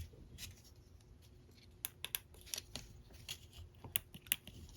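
Faint, irregular light clicks and ticks of hands and small tools working on a circuit board, fitting a new tactile push-button switch.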